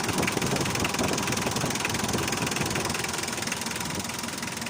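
Mitsubishi 4D56 four-cylinder diesel engine running steadily after repair, a dense run of rapid ticks with no knock from the pulley.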